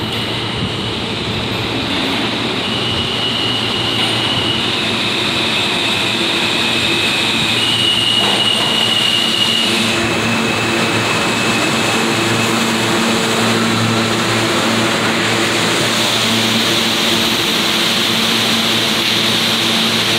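New York City Subway R160A train pulling into an underground station and coming to a stop. Wheels run on the rails with a steady rumble that builds over the first few seconds. Several high squealing tones come in the first half, and a steady low hum from the train's equipment follows once it has slowed.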